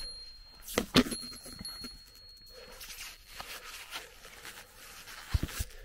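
Heavy iron climbing chain knocking and clanking as it is gripped and hauled on during a climb up a steep rock face: a sharp knock at the start, two about a second in and two more near the end, with a faint thin high ringing between them.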